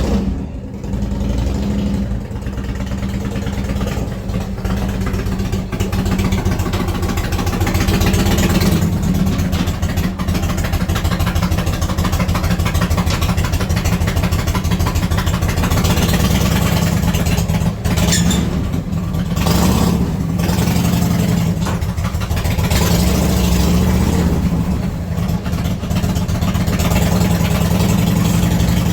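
Harley-Davidson Road King's Evolution V-twin running at a loping idle, with the throttle blipped a few times as the bike is rolled up onto a motorcycle lift.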